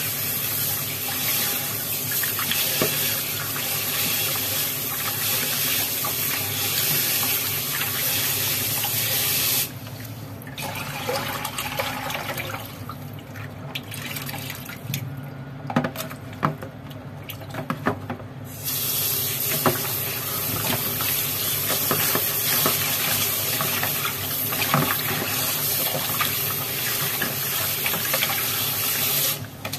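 Kitchen tap running into a plastic basin in a stainless-steel sink while raw oxtail pieces are rubbed and rinsed by hand. The running water cuts off about ten seconds in, leaving splashes and knocks as the basin is tipped and drained, then starts again about eight seconds later and stops near the end.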